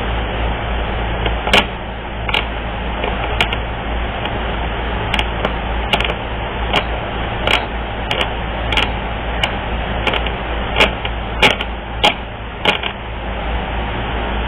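Irregular sharp clicks and taps, about twenty of them scattered unevenly, over a steady background hum and hiss.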